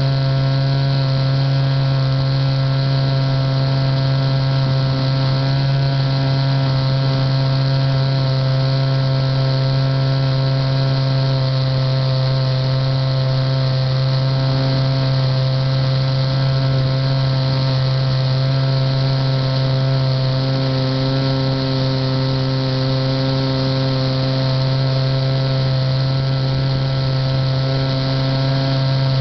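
Model airplane motor and propeller heard close up from an onboard camera, running steadily at an even pitch as the plane cruises.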